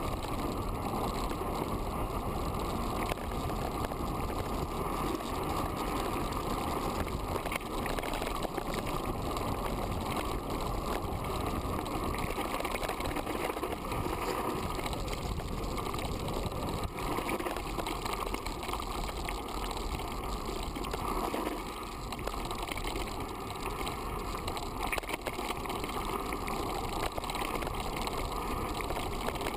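Steady rumble of wind and tyre noise from riding along a dirt forest track, with no clear engine note.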